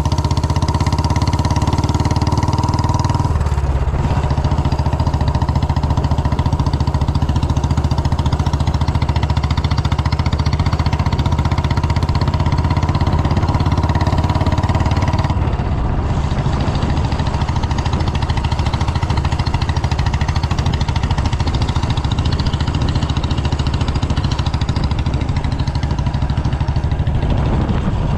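Royal Enfield Bullet's single-cylinder engine running with a steady, loud exhaust beat. The engine note shifts about three seconds in and drops a little in level about halfway through.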